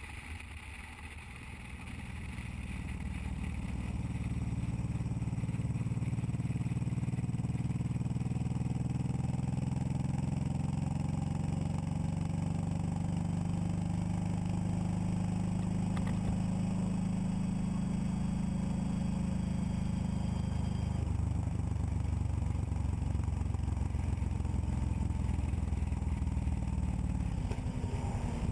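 Motorcycle engine running on the highway, building up over the first few seconds as the bike gets under way, then holding a steady cruising drone.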